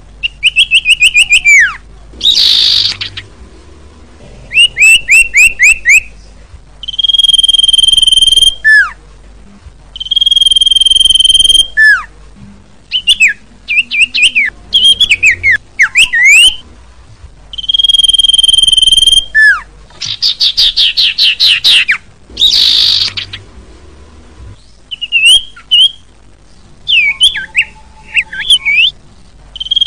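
Common iora singing loudly in repeated phrases: long steady whistled notes that each end in a quick falling slur, alternating with fast runs of short descending notes and a few harsher buzzy phrases.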